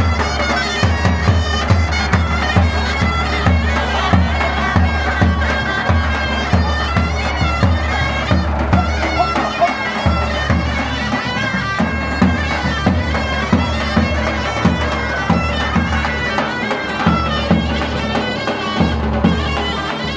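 Live Greek folk dance music: a bagpipe plays a fast, ornamented melody over its steady drone, with a regular drum beat underneath.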